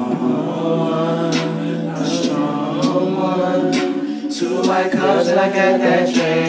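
Wordless a cappella singing: voices holding long notes in harmony.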